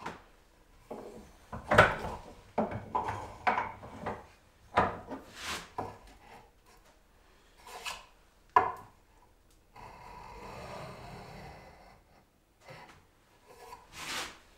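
Small metal hand plane taking shavings off the edge of a wooden box, a scraping wood-on-metal sound in a series of short, irregular strokes, with one longer, steadier pass past the middle.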